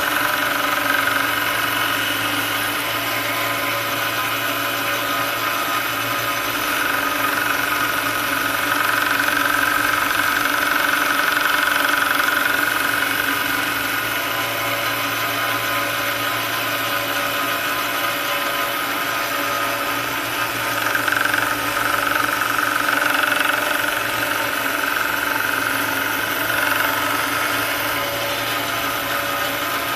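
A 1x30 belt sander running steadily while a forged-nail steel letter opener blade is held against the belt for final grinding up to 400 grit. The grinding grows louder in two long stretches, from about six seconds in and again from about twenty-one seconds in.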